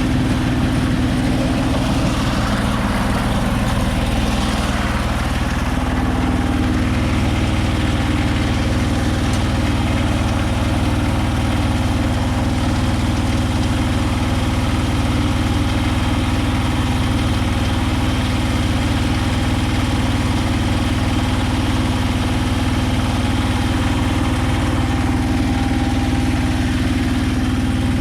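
Konma MT-S411D harvester running steadily: a continuous mechanical drone of its engine and threshing drive, with a slight change in tone about five seconds in.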